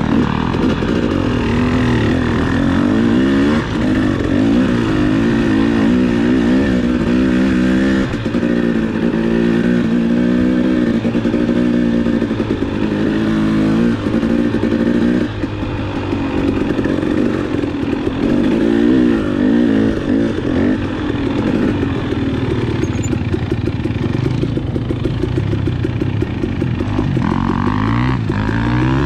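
Two-stroke enduro dirt bike engine being ridden hard, its revs climbing and dropping again and again as the throttle is worked and gears change.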